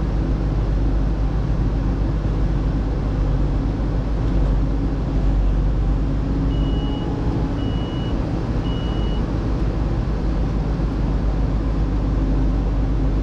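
Case IH 2588 combine running steadily as its feeder house lifts the bean head on. About halfway through come three short, evenly spaced high beeps.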